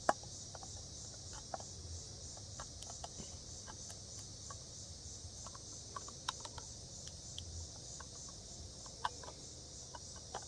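Swiss Army knife can opener levering its way around the rim of a tin can, each bite through the lid a small sharp click, coming irregularly about once a second. A steady high-pitched insect chorus runs beneath.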